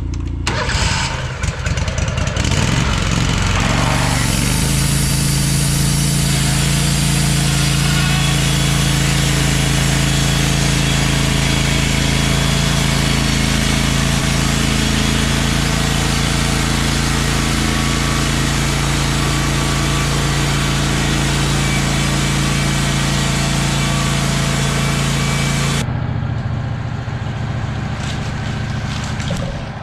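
Wood-Mizer LT15 band sawmill running under power, its band blade sawing through a yellow pine log in one long steady cut. Near the end the sawing hiss drops away and the engine runs on alone.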